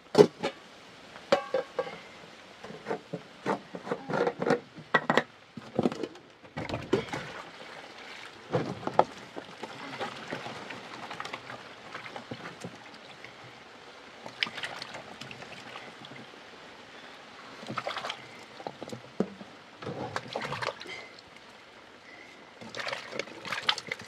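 Potatoes being washed by hand in a metal pot of water: water sloshing and splashing, with potatoes and pot knocking and clinking in irregular bursts.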